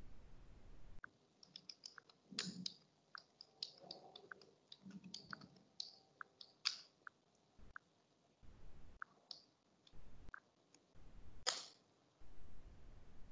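Faint, scattered clicks and light taps, thickest in the first half with a sharper click near the end, among a few dull low bumps: a phone being tapped and handled close to its microphone.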